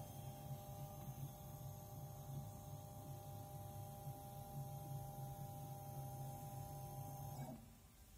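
SPC-01 stretch film peel cling tester's drive motor and ball screw running steadily, a low hum with a thin whine, starting right after a touch-screen press and stopping abruptly about seven and a half seconds in.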